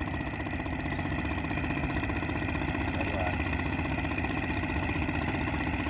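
A small engine running steadily at an even speed, a continuous drone.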